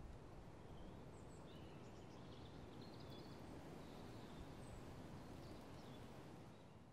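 Near silence: a faint outdoor ambience with a few faint, high bird chirps through the middle.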